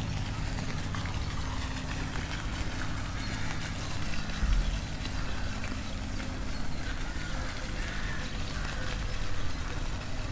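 A low, steady engine hum, fading after about seven seconds, with a dull thump about halfway, over a steady background hiss.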